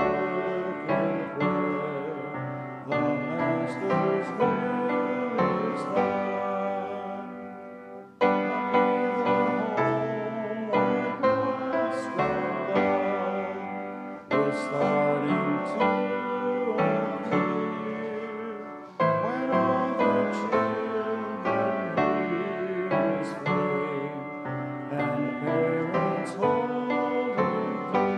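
Church congregation singing a hymn to piano accompaniment, with brief pauses between sung lines.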